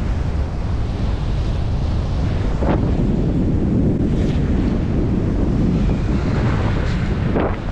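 Strong wind buffeting the microphone: a loud, steady low rumble, with a couple of brief crackles.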